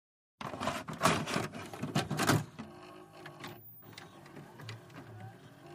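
Buttons and tape mechanism of a professional videotape recorder: a quick run of loud clicks and clunks in the first two seconds, then a quieter mechanical running with a few soft ticks and low thuds.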